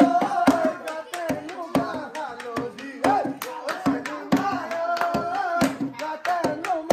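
A bihu song sung live over dhol drumming, with quick, uneven drum strokes and hand claps cutting through a wavering sung melody.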